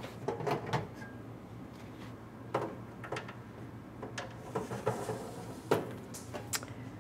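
Trays sliding into a food dehydrator: a series of light knocks and scrapes as the trays go into the rack.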